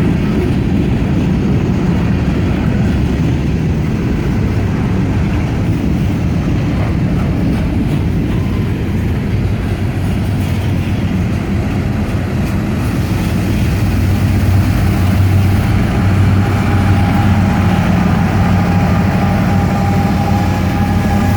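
Freight cars of a long CSX mixed freight train rolling past, a steady heavy rumble of wheels on rail. It grows a little louder about two-thirds of the way through, where a steady tone joins in.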